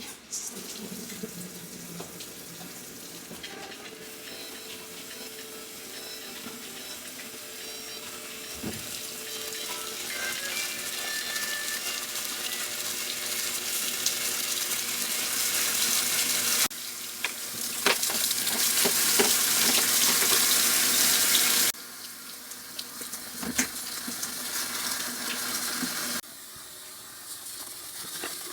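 Water running from a tap, getting louder over time, with sudden changes in level several times.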